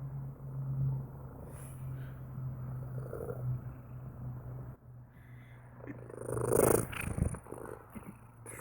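Domestic cat purring steadily in a low, fast pulse, growing louder and breathier about six seconds in.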